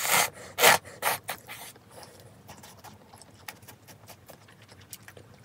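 A person slurping fried instant cup-ramen noodles: four quick, noisy sucks in the first second and a half, then faint clicks of slow chewing.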